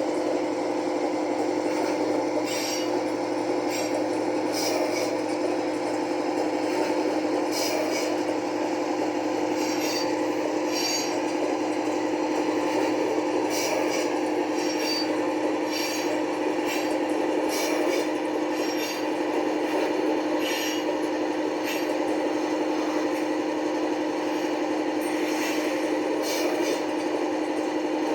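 Sound decoder in a model Class 55 Deltic locomotive playing its Napier Deltic diesel engine sound through the model's small speaker, a steady hum, with short high-pitched scraping squeals coming and going over it.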